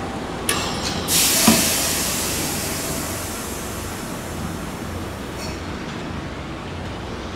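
Train driving simulator's train sound as the brake lever is pulled all the way: a couple of clicks, then a loud rush of hiss starts about a second in and slowly fades over several seconds, as the simulated train brakes toward a stop.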